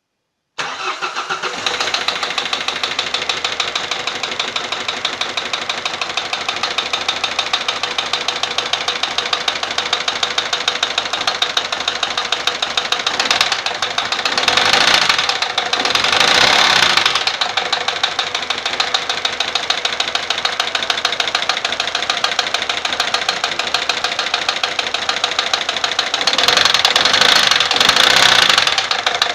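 Peugeot 407 1.6 HDi four-cylinder turbodiesel running with a fast, steady knocking tick, the abnormal noise under diagnosis. It is revved up briefly around the middle and again near the end, then drops back to idle.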